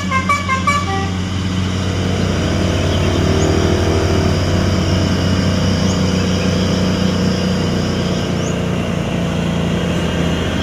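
Diesel engine of a heavily loaded long cargo truck running steadily under load as the truck approaches, growing louder and deeper about two seconds in.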